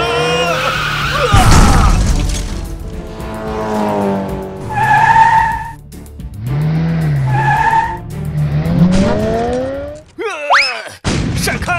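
Cartoon race-car sound effects over background music: a loud burst of noise about a second and a half in, tyre squeals, and engines revving up in rising sweeps near the end.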